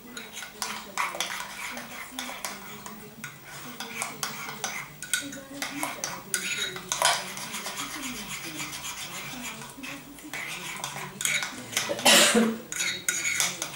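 Metal spoon stirring a thick yogurt mixture in a ceramic bowl, with continual small scrapes and clinks against the bowl's sides; a couple of louder scrapes come about halfway through and near the end.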